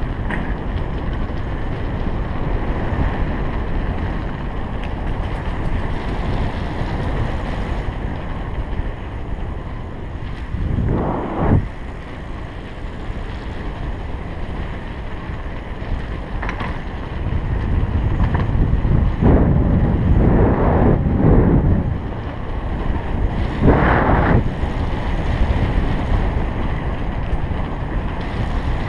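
Wind buffeting the microphone of a bike-mounted action camera during a fast ride, over a steady low rumble of bicycle tyres on cobblestones. A few louder rushes of wind come through, one about a third of the way in and several in the last third.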